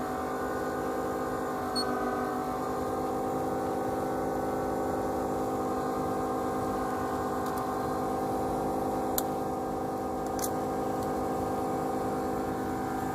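Steady electrical hum made of several even tones, with a few faint clicks.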